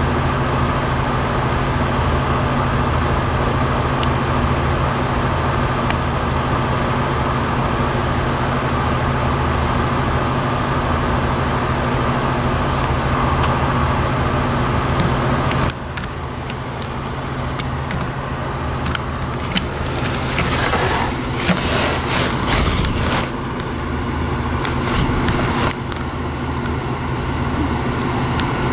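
Steady hum of an idling motor vehicle that stops abruptly about halfway through, leaving quieter street noise with scattered clicks and a brief louder rush.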